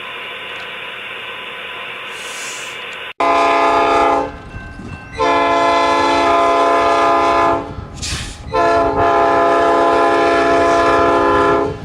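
HO scale model diesel locomotive's Tsunami sound decoder playing through its small speaker: a steady diesel prime-mover running sound, then, after an abrupt break about three seconds in, three multi-tone air horn blasts, one short followed by two long ones.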